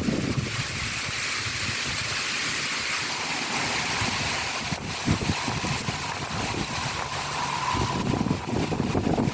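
Heavy rain pouring in a strong wind, with gusts buffeting the microphone.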